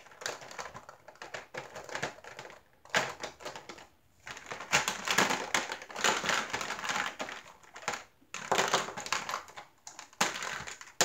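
Small clear plastic drill-storage containers clicking and clattering against each other and against a clear plastic storage case as they are picked up and set into its slots, in spells of rapid clicks with brief pauses.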